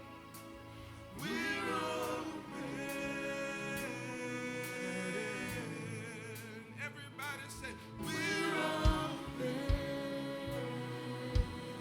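Gospel worship music: a voice sings long, wavering runs without clear words over held chords. A few low thumps come in the second half.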